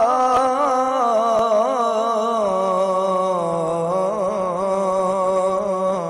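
A man singing one long, drawn-out note between lines of a Punjabi Sufi song, the pitch wavering and stepping down about halfway through, then held. The voice comes through a phone voice-chat app.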